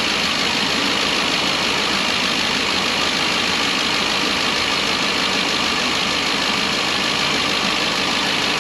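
A 2012 Ford E350 van's gasoline engine idling steadily, being checked for misfires after its intake manifold was replaced.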